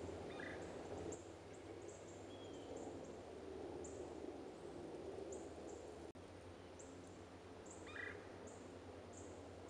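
Faint outdoor ambience: short high chirps repeating about twice a second, with a lower pitched call about half a second in and another near the end, over a steady low hum.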